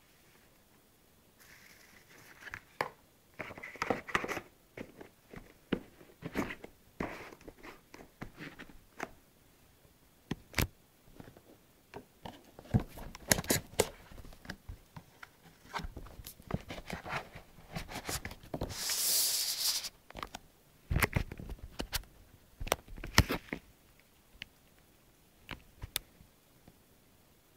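Hands handling a long cardboard wand box: scattered taps, knocks and scrapes, with a longer rustling scrape about two-thirds of the way through.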